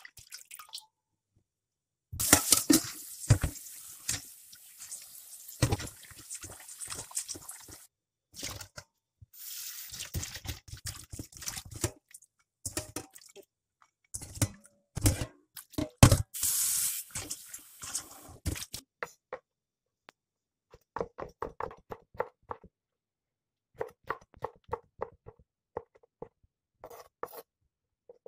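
Water splashing and sloshing in a stainless steel bowl in a sink as soaked wood ear mushrooms and then dried shrimp are rinsed by hand, with occasional knocks against the bowl. In the last several seconds, a knife cuts on a wooden chopping board in two runs of quick taps.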